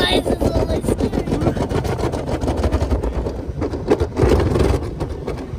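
Toboggan sliding fast down a grassy slope: a rough, steady rumble and scraping with frequent small knocks, mixed with wind buffeting the microphone.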